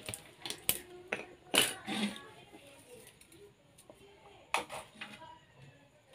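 Scattered clicks and knocks from the charger's leads and metal crocodile clips being handled and set down on a tiled floor, the loudest about a second and a half in and again near the end.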